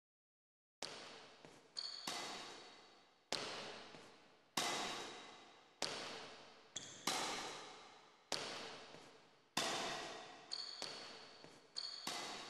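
Slow percussive beat of sharp, echoing strikes, one about every 1.25 seconds, beginning about a second in. Smaller extra hits fall just before some strikes, a few with a short high ping.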